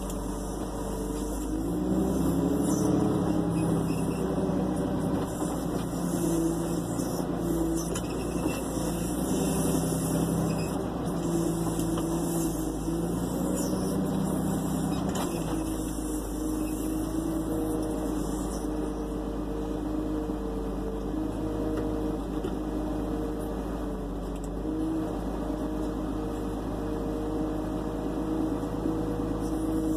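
Tractor engine running under loader work, its pitch rising and falling several times as the front-loader bale grab handles a large square straw bale, then running steadier for the second half.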